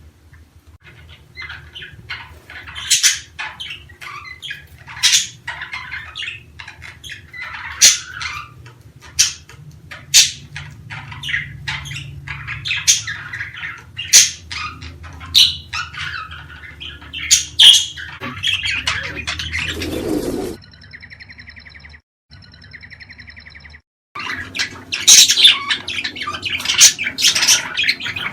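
Budgerigars chirping and squawking in many short, sharp calls. The calls break off for a few seconds about two-thirds through, after a brief rush of noise, then start again densely.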